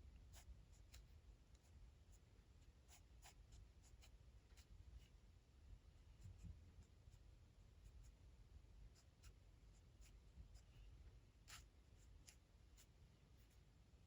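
Faint, irregular taps and strokes of a stylus on an iPad's glass screen while sketching, over a low hum.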